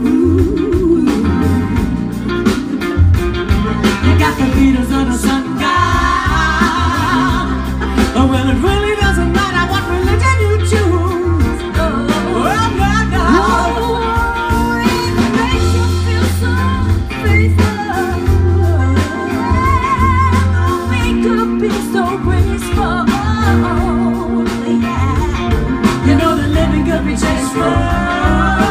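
A song with a singer and a band playing, with a strong bass line throughout.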